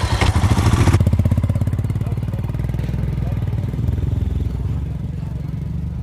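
Royal Enfield Himalayan's single-cylinder engine running with an even, rapid thump.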